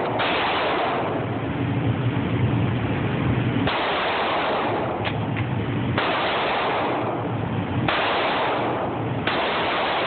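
Springfield XD pistol in .40 S&W firing slow single shots, about five, spaced roughly one and a half to three and a half seconds apart. Each report trails off into a long echo.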